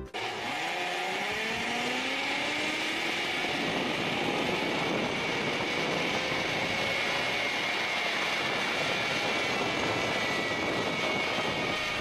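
Trolley pulleys running along a steel cable during an overhead cable ride. It makes a steady whirring hiss, with a whine that rises in pitch over the first few seconds.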